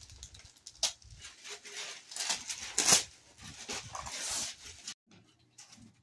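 Gift-wrap paper being ripped and crinkled off a box by hand: a few sharp tears, the loudest about three seconds in, with rustling between them.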